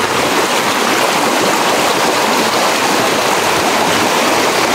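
Fast-flowing river rushing steadily, a strong current strong enough to sweep a person away.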